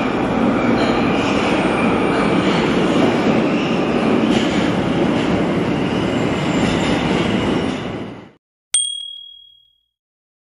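Tokyo Metro Ginza Line subway train pulling into an underground platform: a steady rumble of wheels and motors that cuts off abruptly about eight seconds in. Shortly after, a single bright ding rings out for about a second.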